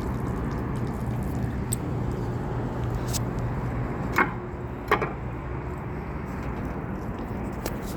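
A steady low hum with a background of noise, broken a little past the middle by two sharp knocks about a second apart, plus a few faint ticks.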